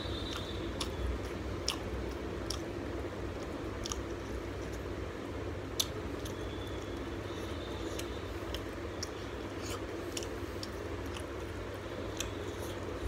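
Close-up chewing and wet mouth smacking of a person eating rice and prawn curry, with scattered sharp clicks as fingers squish and gather rice on a stainless steel plate, over a steady low hum.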